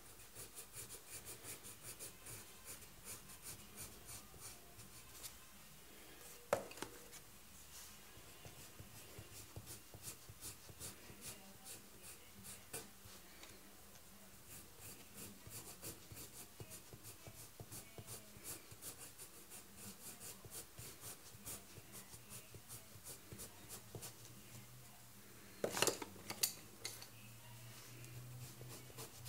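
Coloured pencil scratching on drawing paper in rapid, quiet back-and-forth shading strokes. A knock comes about six and a half seconds in, and a louder cluster of knocks comes near the end.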